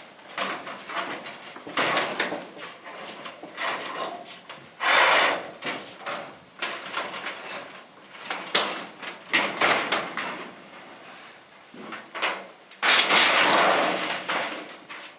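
Steel building arch section scraping, rattling and knocking as it is lifted by hand, with longer loud scrapes about five seconds in and again near the end.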